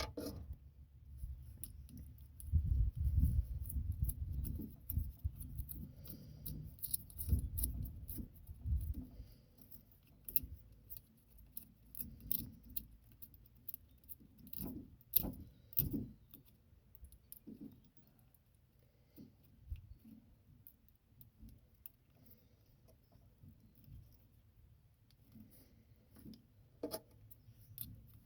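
Hands and small tools working on the truck's ignition wiring: scattered small clicks, rattles and rustles, with low bumps and handling noise in the first few seconds.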